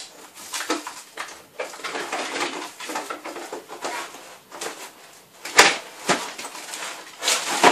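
Irregular clicks and knocks of objects being handled, with a sharp, louder knock about five and a half seconds in and another near the end.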